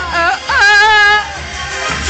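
Pop music playing, with a sung voice that glides up and holds one wavering note for most of a second, over a bass beat.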